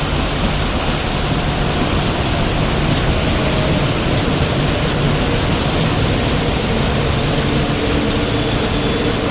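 Twin WDM-3D diesel locomotives running with a steady low engine drone, over the continuous hiss of heavy rain.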